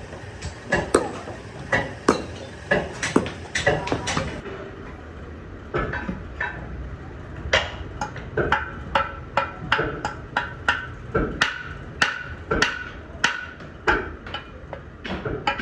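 A metal pump-body casting being knocked clean of its moulding sand: irregular hammer blows on the casting, then, after a cut, steady strikes of a metal hand tool against the inside of the casting at about two a second, each with a short metallic ring.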